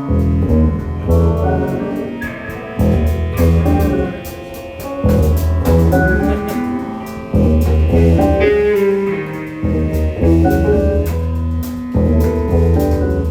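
Live band playing an extended jam: a driving bass line with drum kit, and guitar and keyboard over it.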